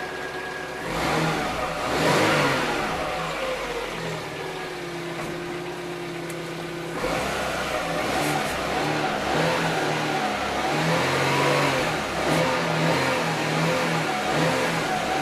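Chevrolet Aveo 1.6 engine running with a newly replaced power steering pump, the sound the owner contrasts with the old pump's hum. The sound swells about one and two seconds in, then steps up and stays louder from about seven seconds in.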